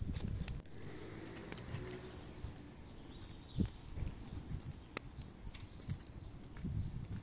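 Scattered knocks, scrapes and footsteps on dirt as sticks are fed into a small wood-burning stove, with one sharper clatter in the middle. A faint bird chirp or two.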